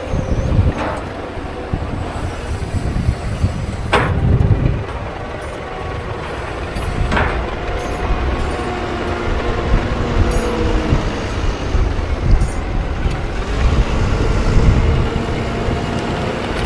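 Heavy diesel farm machinery at work on grass silage: engines running steadily with the pitch drifting as they are worked, with a few short sharp knocks or hisses, the strongest about four seconds in.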